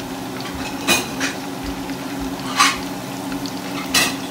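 Marinated chicken pieces deep-frying in hot oil in a steel wok, a steady sizzle and bubbling. Three sharp clinks of a wire spider strainer against the pan break through, with a low steady hum underneath.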